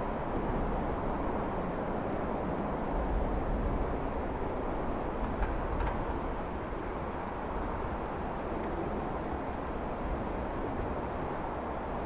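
Steady outdoor background noise, a low rumble with hiss, and one faint tick about halfway through.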